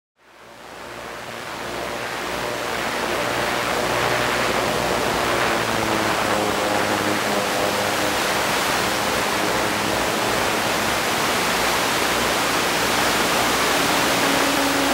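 Steady rushing hiss of an analog FPV recording from an RC plane in flight, with a faint wavering motor tone beneath it. The hiss fades in over the first few seconds.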